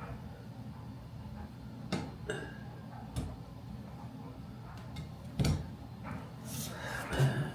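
A few separate light clicks and knocks from hand work with parts and tools, over a steady low hum; the sharpest comes about five and a half seconds in.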